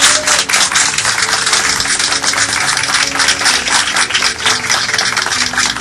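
Crowd of airliner passengers applauding: dense, loud clapping from many hands, with soft sustained background music underneath.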